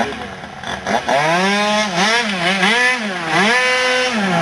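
Small motorcycle engine being revved up and down about four times, then held at a steady pitch near the end.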